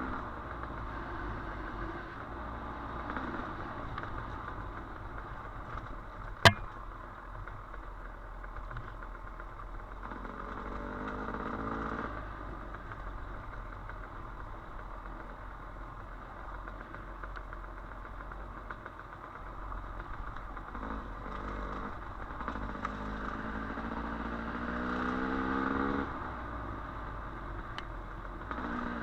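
Dirt bike engine running on a trail ride, rising in pitch as the rider accelerates, once around ten seconds in and again from about twenty-one seconds to twenty-six. A single sharp click about six seconds in.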